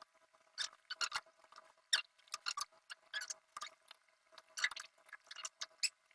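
A screwdriver driving screws into an induction cooker's circuit board and housing: a run of short, irregular squeaks and clicks.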